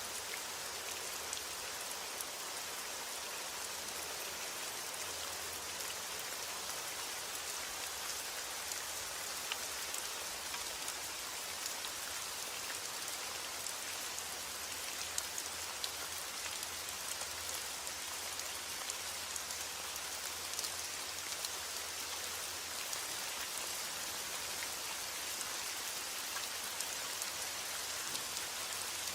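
Heavy rain falling steadily: a dense, even hiss with many scattered sharper drop ticks.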